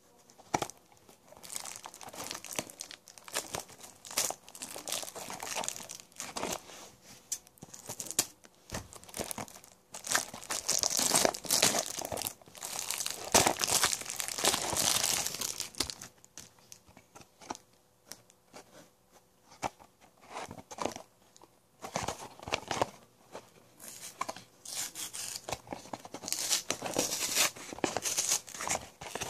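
Packaging being crinkled and torn open by hand, in irregular rustling bursts. The longest, loudest stretch comes about halfway through, and another comes near the end.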